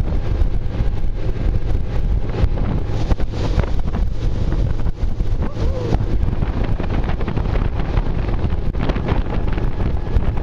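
Loud wind buffeting the microphone over the steady rumble of a moving vehicle.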